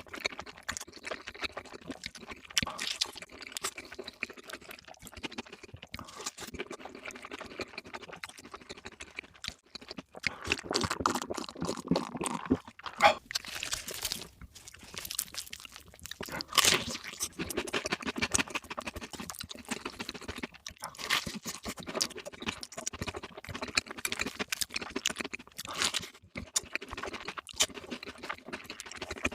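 Close-miked eating: crunchy bites and wet chewing of fried food, in a dense run of short crackles with a few louder crunches along the way.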